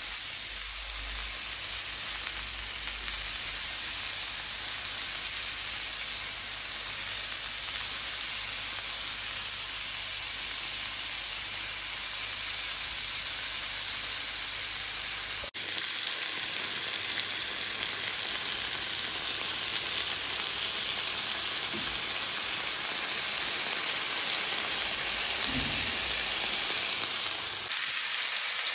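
Chicken skewers with green peppers and pearl onions sizzling steadily in a hot grill pan with a few drops of oil. The sizzle breaks off for an instant about halfway through.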